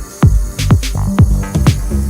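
Background electronic music with a steady beat: deep falling kick drums about twice a second under a sustained bass line and crisp hi-hat-like hits.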